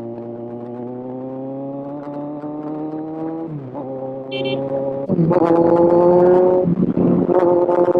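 Kawasaki Z1000 inline-four engine heard from the rider's position, revs climbing slowly, then dropping about three and a half seconds in as the rider shifts or eases off. About five seconds in it gets much louder under more throttle.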